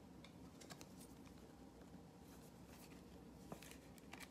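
Faint, scattered light clicks and rustles of trading cards being handled and set down.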